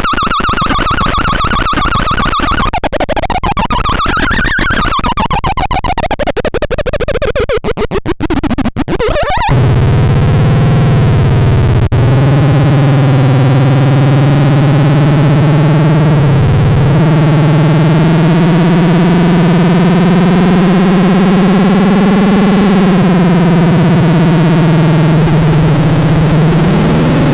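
Antisilvestron electronic sound generator making harsh synthesizer-like tones. It starts as a clicking, buzzy high tone, then sweeps up and back down in pitch over rapid clicks. About a third of the way in it switches to a steady low buzzing drone that wavers slightly, with a rising sweep near the end.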